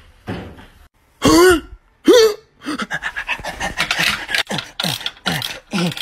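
Wordless vocal sounds: two loud short cries about a second and two seconds in, followed by a quick string of short voiced yelps and grunts.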